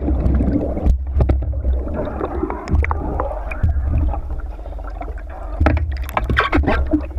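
Lake water churning and gurgling around a submerged action camera, heard through its waterproof housing as a heavy low rumble, with bubbles and several sharp knocks.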